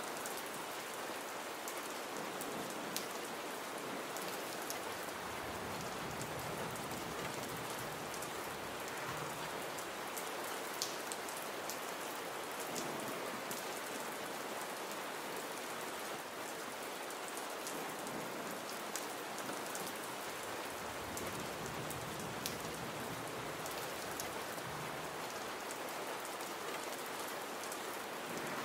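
Gentle rain falling steadily: an even hiss with scattered single drops ticking.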